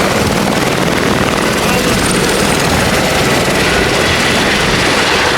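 Helicopter in flight, its rotor beating loudly and steadily.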